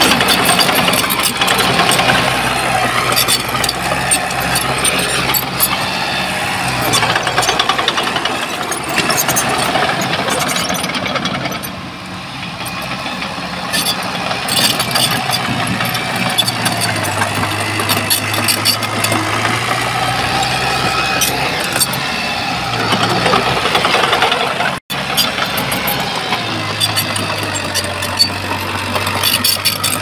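Heavy diesel earthmoving machinery working, its low engine note stepping up and down in pitch several times over a constant clatter and scrape. The sound cuts out for an instant about 25 seconds in.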